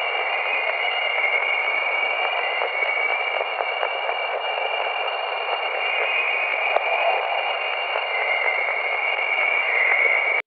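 Jupiter's chorus waves recorded by Voyager's plasma wave instrument and played as sound: a steady dense hiss with a band around 2 kHz that wavers gently up and down. It cuts off suddenly at the end.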